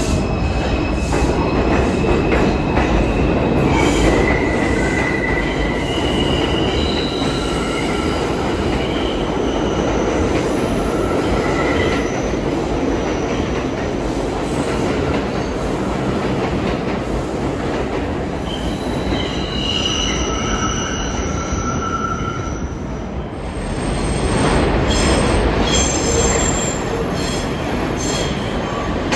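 New York City subway train of the R142/R142A type running through the station with a continuous rumble, its steel wheels squealing on the rails in high, shifting tones. The rumble dips briefly near the end, then swells again.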